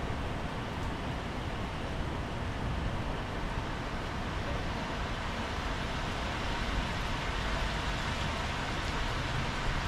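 Heavy rain falling steadily on a wet tiled patio: an even hiss with a low rumble underneath.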